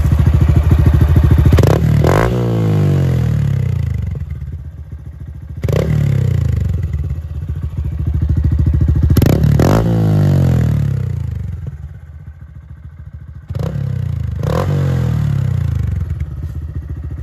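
Honda Grom's 125cc single-cylinder engine with a Yoshimura exhaust, revved several times by hand. Each rev climbs sharply, then the pitch falls back toward a lumpy idle before the next blip.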